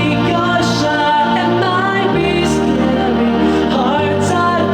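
Pop song with a singing voice over sustained chords, the bass note changing about every two seconds.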